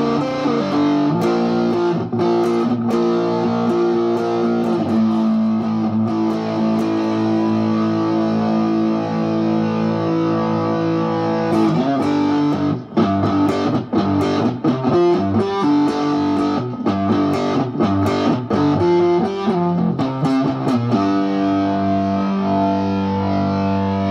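Electric cigar box guitar played amplified, strummed and picked. It opens with held notes and chords, moves to a quicker passage of separately picked notes about halfway through, then settles on a held chord near the end.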